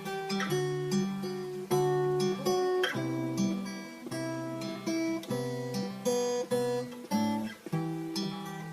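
Instrumental music: an acoustic guitar strumming a sequence of chords, each struck and left to ring before the next.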